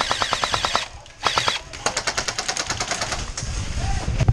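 Airsoft electric guns firing full auto in rapid bursts of about a dozen shots a second. One burst stops just under a second in, a short burst follows, then a longer burst, with fainter fire trailing near the end.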